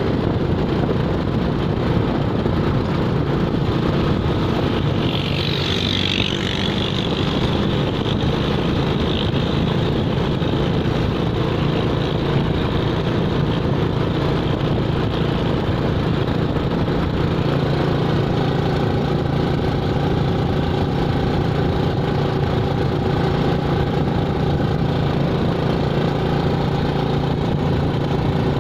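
A vehicle engine running steadily, with a brief higher hiss about five to seven seconds in.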